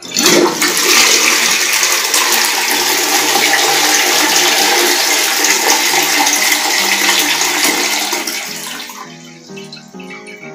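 Toilet flushing: a loud rush of water that starts at once, runs steadily for about eight seconds and tails off near the end. This is a test flush after the tank's refill valve was replaced.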